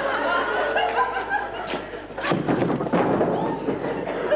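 Audience laughing in a hall, with voices rising and falling. A short cluster of thumps and scuffling comes a little after two seconds in.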